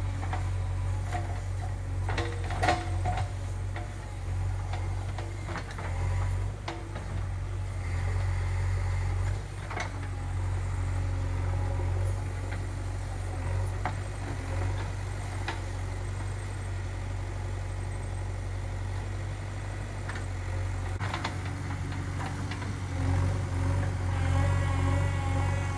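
Diesel engine of a JCB 3DX backhoe loader running steadily, with a few sharp knocks along the way and getting louder near the end.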